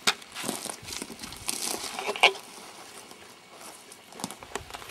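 Irregular crackling and rustling with scattered sharp clicks. The loudest is a short, sharp sound about two seconds in.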